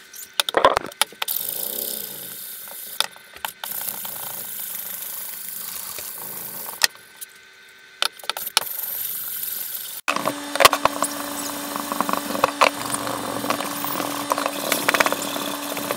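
An electric sander working over a synthetic rifle stock, stripping off its peeling rubber grip coating, with scattered knocks from handling the stock. About ten seconds in the sound cuts and resumes with a steady motor hum under the sanding noise.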